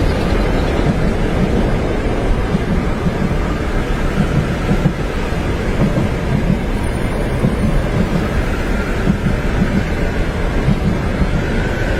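Train running on its tracks, heard from inside a passenger compartment: a steady, dense low rumble with a faint whine that rises slightly near the end.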